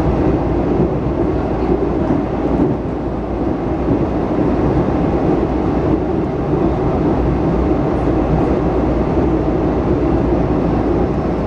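Washington Metrorail train running at speed, heard from inside the car: a steady rumble of ride noise.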